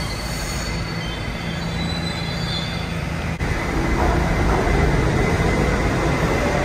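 New York City subway train running along the far track of an underground station: a steady rumble, with thin high wheel squeal over the first three seconds. A click about three and a half seconds in, after which the rumble grows louder as the cars pass behind the columns.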